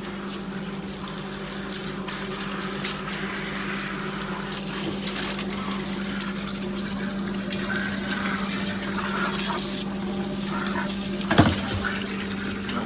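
Water spraying steadily from a SparkPod 10-mode handheld shower head, a hiss with a steady low hum beneath it. The spray gets a little louder about halfway through, and there is a brief sharp sound about eleven seconds in.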